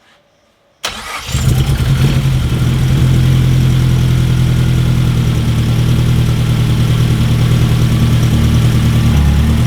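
Freshly rebuilt Mazdaspeed 3's 2.3-litre turbocharged four-cylinder engine starting for the first time: about a second in it fires suddenly and catches almost at once, then settles into a steady, loud idle.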